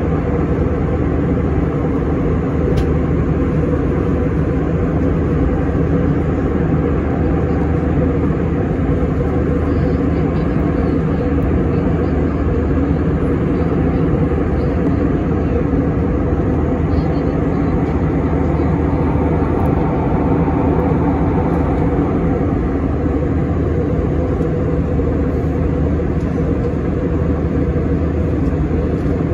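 Steady cabin noise inside an Airbus A321 airliner in cruise: a constant rush of airflow and engine drone, heaviest in the low end and unchanging throughout.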